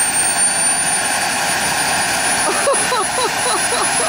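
Mini jet turbine engine mounted on a Traxxas X-Maxx RC truck running steadily: a continuous rushing roar with a thin high whine that creeps slightly upward in pitch.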